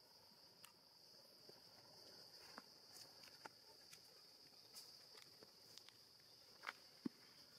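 Faint, steady, high-pitched insect drone, with scattered soft clicks and taps; the sharpest click comes about seven seconds in.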